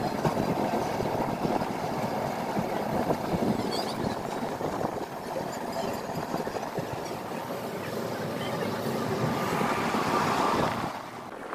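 Chhattisgarh Express passenger train pulling out of the station and running, heard from an open coach doorway: a steady rumble of the wheels on the rails.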